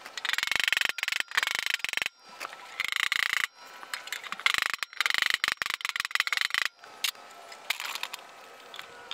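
Steel door-skin flange being tapped down over the door frame with a body hammer. The blows come in bursts of rapid, light metallic taps with a ringing tone, broken by short pauses, as the flange is folded over a little at a time along its length.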